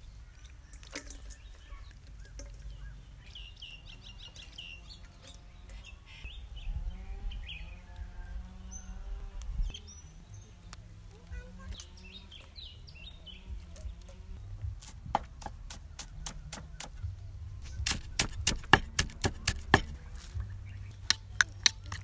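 Birds chirping in short repeated series, then from about two-thirds of the way through a quick run of sharp clicks and taps of a metal spoon against a bowl.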